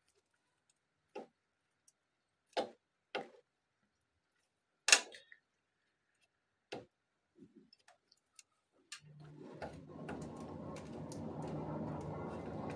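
Scattered light clicks and taps as a soldering iron's tip prods and scrapes a plastic dryer lid part while plastic-welding a break, the loudest tap about five seconds in. From about nine seconds in a steady low hum with a rushing noise comes in.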